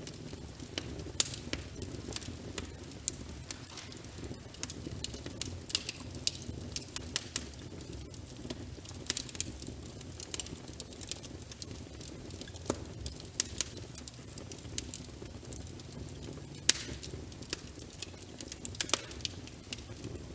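Crackling wood fire with frequent irregular sharp pops and ticks over a steady low rumble, layered with rain pattering on a window.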